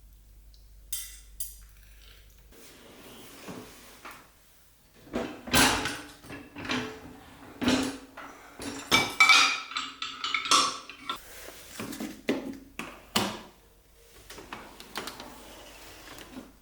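Dishes and cutlery clattering: a string of irregular clinks and knocks, some briefly ringing, busiest and loudest in the middle.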